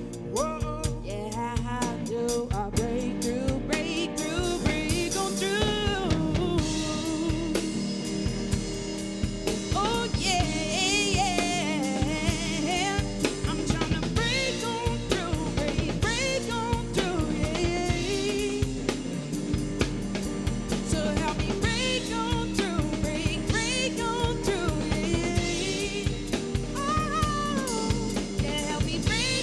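Band music with a drum kit keeping a steady beat, snare and bass drum hits, under a wavering melodic line and singing.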